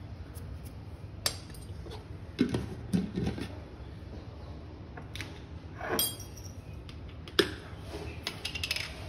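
Scattered light clinks and knocks of kitchen utensils, about half a dozen sharp ones a second or so apart, a couple of them duller thuds, over a low steady hum.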